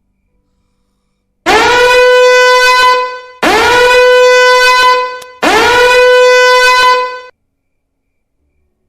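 Three long horn blasts, one after another. Each swoops up in pitch at the start and then holds one loud, steady note. It is a meme sound effect.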